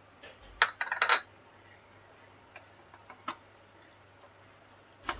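Wooden spatula stirring a thick milk-cake paste in a small non-stick pan. A quick cluster of knocks and scrapes against the pan comes in the first second, then a few fainter taps, and one more knock near the end.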